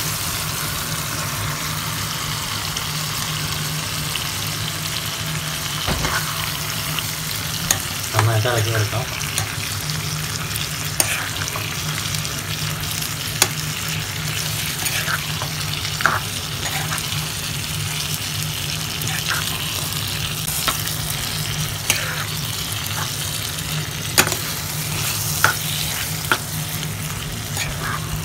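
Steamed lemon pieces sizzling in hot spiced oil in a pan as they are stirred in, with sharp clicks and scrapes of the spoon against the pan every second or two. A steady low hum runs underneath.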